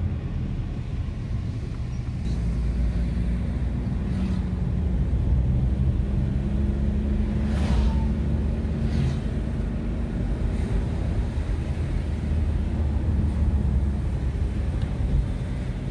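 Car engine and tyre noise heard from inside the cabin of a moving car: a steady low hum that holds level throughout.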